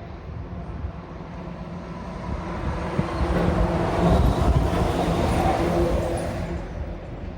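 A vehicle passes by, its noise swelling to a peak about four seconds in and then fading.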